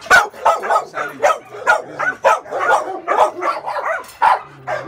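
Pit bull barking repeatedly, about two barks a second.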